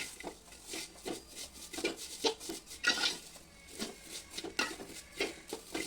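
A spoon scraping and knocking against a pot while stirring vermicelli frying in ghee, with irregular scrapes and light clinks several times a second.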